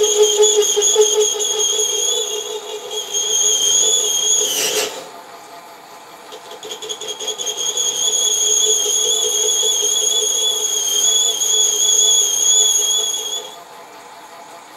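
Sieg SC4 lathe cutting a ring groove in a cast iron piston, the tool giving off a steady high-pitched squeal of chatter as the work, held without tailstock support, wobbles slightly. The squeal breaks off with a short scrape about five seconds in, starts again a couple of seconds later and stops a second or so before the end, leaving the lathe running more quietly.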